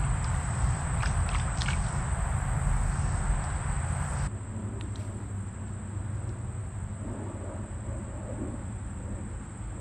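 Outdoor creek ambience: running water and a steady high insect drone, with a few light clicks about a second in. About four seconds in, the water noise drops away suddenly, leaving a quieter low rumble.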